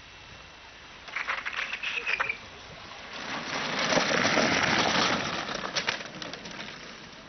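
Homemade kart rolling down an asphalt road with no engine sound. Its wheels and frame clatter, with a brief squeal about a second in, then a swelling rolling noise at its loudest around four to five seconds in as a kart passes close, with a few sharp clicks and rattles.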